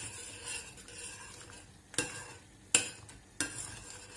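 Metal spoon stirring flour soup in a stainless steel pot, scraping round the pot and knocking sharply against its side about three times in the second half.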